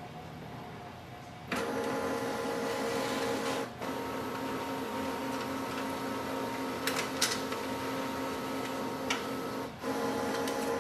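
Epson WorkForce Pro WF-3825's automatic document feeder pulling a page through and scanning it. It is a steady motor whine with several steady tones that starts suddenly about one and a half seconds in, broken by two short pauses, with a few light clicks.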